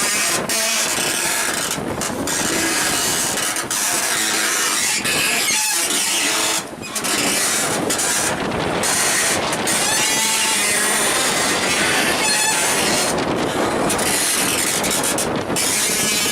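Strong gusting wind buffeting the microphone, with a motorboat's engine running underneath and a couple of brief squeaks, around ten and twelve seconds in.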